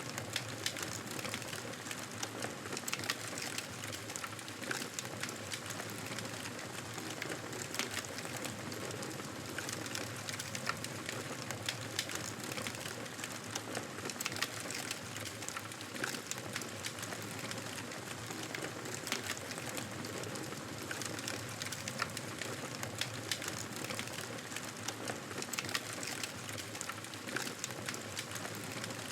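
Fire burning in a fireplace: a steady hiss of flames with frequent sharp crackles and pops.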